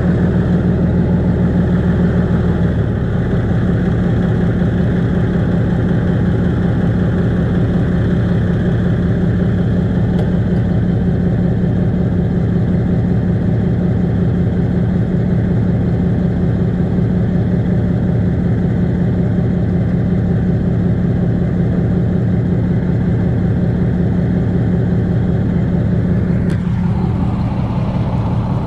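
Cummins diesel engine of a Kenworth truck idling steadily.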